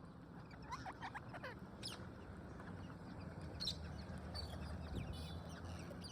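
Parrots giving short squawks and chirps, with a cluster of quick falling calls about a second in and scattered sharp clicks later, over a low steady rumble.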